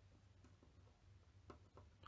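Near silence: a low steady room hum with a few faint ticks.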